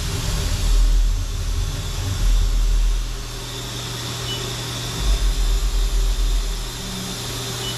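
Haas VF-2SS CNC vertical mill humming while its Z axis is jogged down by the handwheel, with a deep rumble that swells and fades a few times.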